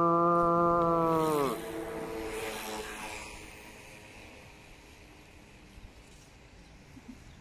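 A man's long, steady imitation of a cow's moo, its pitch sagging as it ends about a second and a half in. Then only a faint outdoor background.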